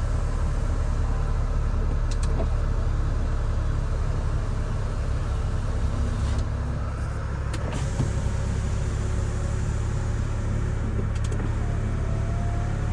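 A 2003 Mini Cooper's power window motors run with a faint whine, with several sharp clicks of switches or the glass stopping. Underneath is the car's steady low hum.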